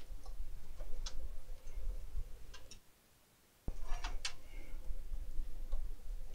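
A few scattered sharp clicks and light taps, with a cluster of clicks about two thirds of the way through: small parts and tools being handled on a repair bench.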